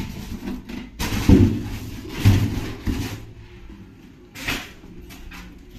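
Knocks and rustling as objects are handled and moved, with three dull thumps between about one and three seconds in and a short rustle near the end.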